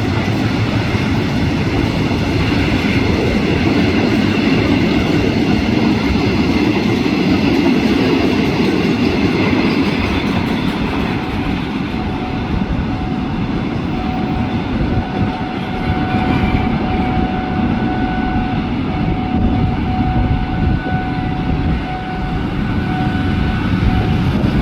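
Freight train wagons rolling past on the rails, a steady rumble with wheels clicking over rail joints. A thin steady whine enters about halfway through.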